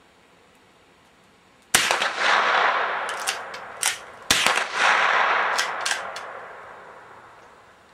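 Two .22 rifle shots from a Remington 572 pump-action, about two and a half seconds apart, each followed by a long echo that fades away over a couple of seconds, with a few smaller sharp cracks between them.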